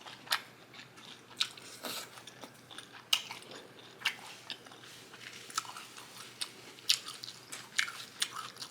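A person chewing close to the microphone, with about ten sharp wet crunches and mouth clicks spread irregularly, while eating a lettuce-wrapped double cheeseburger.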